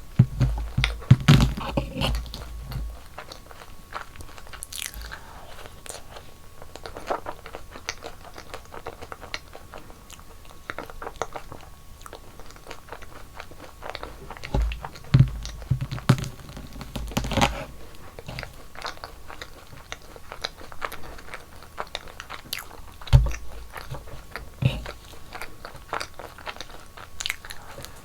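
Close-miked eating sounds: crunchy bites and chewing of sweets, with louder clusters of crunching near the start, about halfway through and again near the end, and softer chewing clicks between.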